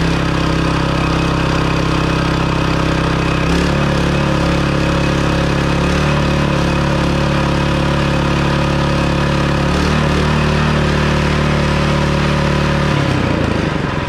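DuroMax 7 hp single-cylinder gas engine running fast and steady while its max-speed (governor) screw is adjusted. The engine speed shifts a couple of times, then drops off a second before the end.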